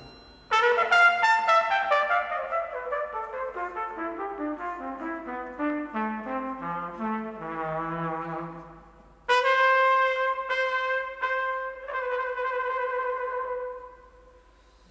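Solo flugelhorn playing unaccompanied: a long run of short notes stepping down in pitch and fading away, then, about nine seconds in, a loud high note sounded several times over and held until it dies away near the end.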